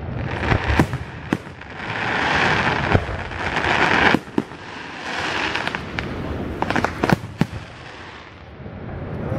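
Aerial fireworks shells bursting in a string of sharp bangs. Through the first two-thirds there are two long stretches of dense crackling hiss.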